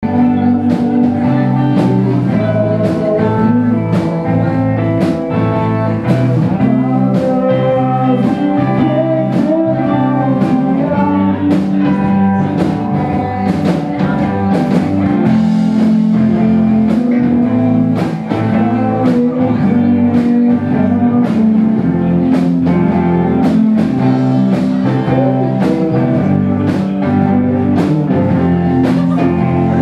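Live rock band playing loudly: electric guitar and bass over a steady drum beat.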